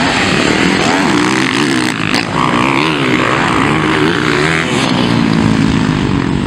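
Several motocross bikes racing, their engines revving up and down with wavering, overlapping pitches as the riders work the throttle; a brief dip in the engine sound about two seconds in.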